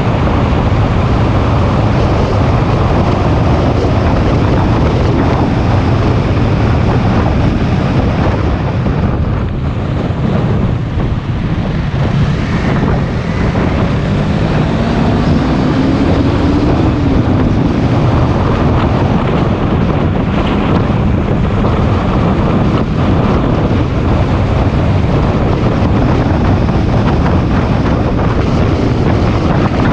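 Wind buffeting hard on the microphone of a moving motorcycle, with the engine running underneath. A faint rising engine note comes through about halfway, as the bike speeds up.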